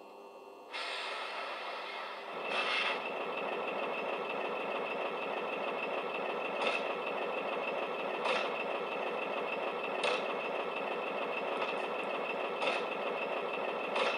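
ESU DCC sound decoder playing a Southern slam-door electric multiple unit's standing sounds through the model's small speaker: a steady running hum that starts about a second in and grows louder about two seconds in, with brief louder peaks every few seconds.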